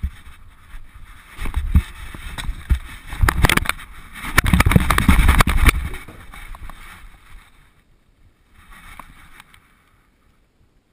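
Bumping and rubbing of a GoPro mounted on a moving dog: a stretch of knocks and low rumble between about one and a half and six seconds in, then faint rustling that fades out.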